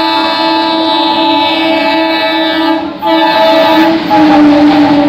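Express train's locomotive horn sounding one long, loud blast as the train approaches and passes at speed. The horn breaks off briefly about three seconds in, then its pitch drops as the locomotive goes by, with the rushing noise of the passing train rising underneath.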